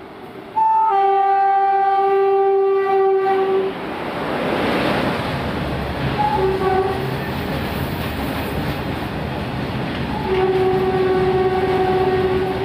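Indian Railways WAG-7 electric locomotive sounding its horn in a long blast of about three seconds, then the rush of the locomotive passing close and the steady rumble and clatter of its freight wagons. A short toot comes about six seconds in, and another long horn blast starts about ten seconds in.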